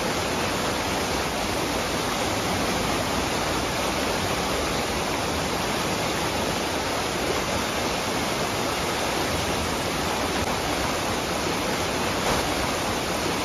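Steady rushing water: an even, unbroken hiss with no changes in loudness.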